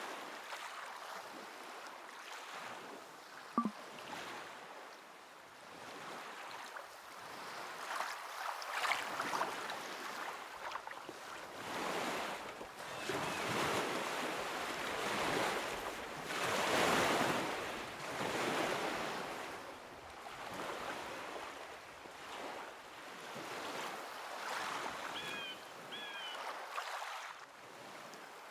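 Ocean waves washing onto a shore, the surf swelling and falling away every few seconds. Two short high chirps come near the end.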